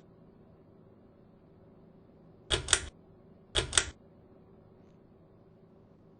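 Harbor Breeze Springfield II ceiling fan's pull-chain switch pulled twice, about a second apart, each pull giving a sharp double click. Under it runs the fan's faint steady hum.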